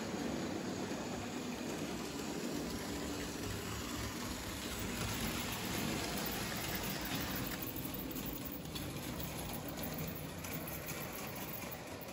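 Märklin H0 model trains running on the layout's track: the steady rolling noise of their wheels and motors.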